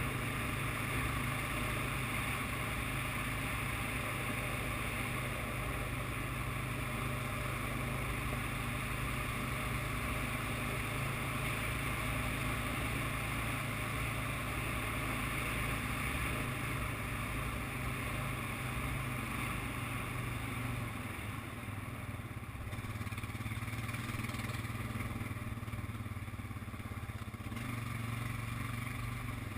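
ATV engine running steadily while riding, with a steady low hum and rushing noise. It eases off slightly about two-thirds of the way through.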